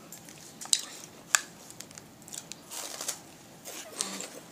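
Someone biting and chewing a dry, crisp chocolate churro snack: a few sharp crunches with softer crackling and rustling between them.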